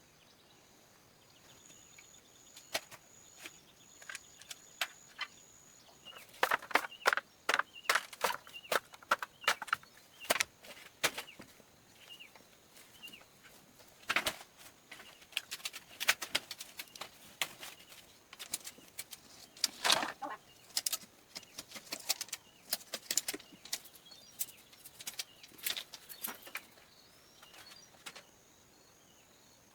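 Irregular sharp knocks and clicks. They come thick and fast through the middle and thin out near the end, with a faint steady high whine at the start and again at the end.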